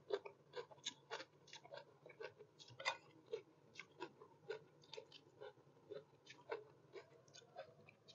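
A person chewing stir-fried morning glory (water spinach) close to the microphone: a steady run of short, crisp crunches, about two to three a second.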